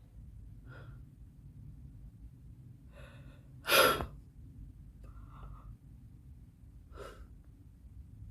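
A person's breath sounds: a loud, sharp gasp or exhale almost four seconds in, among a few softer short breaths or murmurs.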